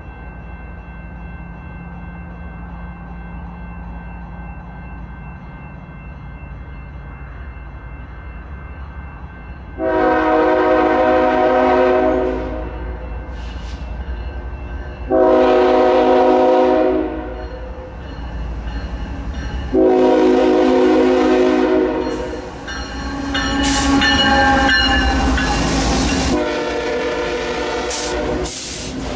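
Passenger train's diesel locomotive rumbling as it approaches, then sounding its multi-note air horn in several long blasts, about two seconds each, beginning about a third of the way in. The last blasts blend with the louder clatter of the train passing close by.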